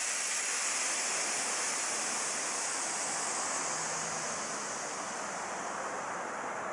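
Pressurised air hissing steadily out of a Schwalbe Pro One tubeless road tyre, starting suddenly and easing slightly over a few seconds; the rider puts the leak down to the rim tape.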